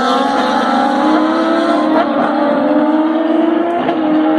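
Turismo Carretera race cars running hard, two engines close together, their pitch climbing slowly and steadily as they accelerate through and out of a curve.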